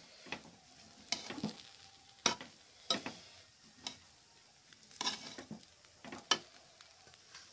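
Metal spatula stirring cooked rice in a metal pan, with irregular scrapes and clinks against the pan's side, several strokes a few seconds apart.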